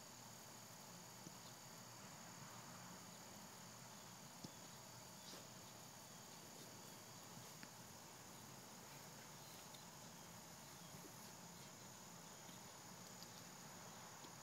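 Near silence: a faint steady high-pitched tone over low hiss, with a few faint, brief ticks scattered through it.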